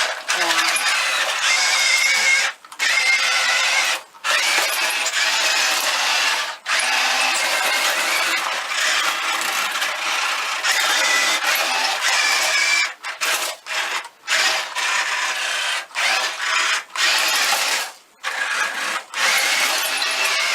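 Small RC Tiger tank's electric drive motors and gearbox whining as it drives over pocket knives, stopping and starting several times.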